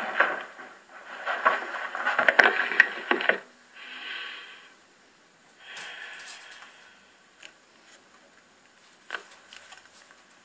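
A film soundtrack played from a TV, heard thin as if over a phone line: a noisy struggle with cries for the first three seconds or so. Then two breaths into the phone, then near-quiet line noise with a few small clicks.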